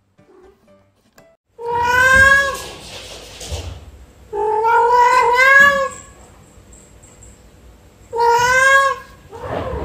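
A ginger cat meowing: three long, drawn-out meows a few seconds apart, each rising and then falling a little in pitch, with a fourth beginning at the end.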